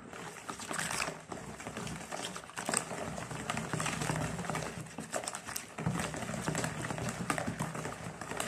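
Plastic hand whisk beating a thin, runny cake batter in a plastic bowl: continuous quick sloshing and splashing with frequent small clicks.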